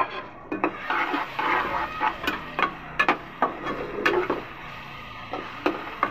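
Metal slotted spoon scraping chopped tomatoes off a plate into a steel pot, then stirring them into frying onions, with irregular clinks and knocks of the spoon against the pot's sides and a soft sizzle.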